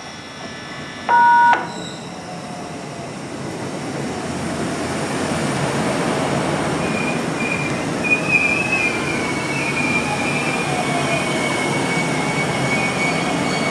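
A short, loud two-tone electronic beep about a second in, then an electric train's running noise that builds over several seconds and holds, with a steady high-pitched wheel squeal and a faint motor whine falling in pitch.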